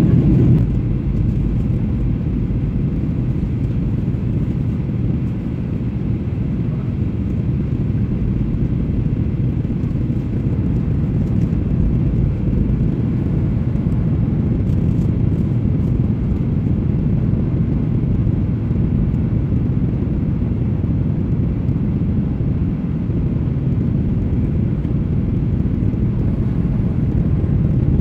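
Steady low rumble of engine and airflow noise inside a jet airliner's passenger cabin during the approach, with the wing flaps extended.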